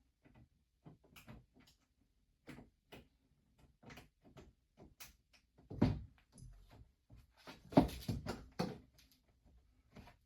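Irregular small clicks and knocks of screws and a screwdriver being worked as the screws are put back in the AC filter cover, with a few louder knocks about six and eight seconds in.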